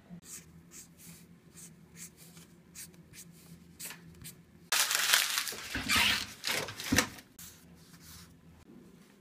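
Felt-tip marker scratching short strokes across paper, drawing crosses, about two or three strokes a second. A little before halfway through, a louder, denser run of fast scratching lasts about two seconds before the single strokes return.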